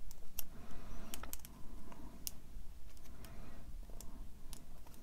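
Small, irregular clicks and ticks of a tiny Allen key turning a screw in a scale-model motorcycle fork leg, about a dozen over a few seconds, as the screw is tightened down.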